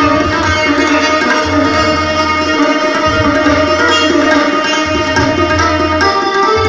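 Indian classical music played live: tabla with deep, ringing bass strokes from the bayan, accompanying a plucked string instrument.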